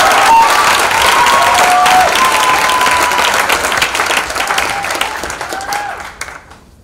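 An audience clapping, with whoops and shouts mixed in. It gradually fades out near the end.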